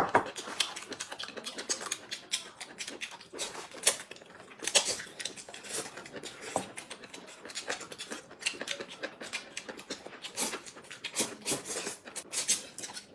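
Two people eating noodles with chopsticks: irregular slurping, chewing and lip-smacking, with small clicks of chopsticks against porcelain bowls.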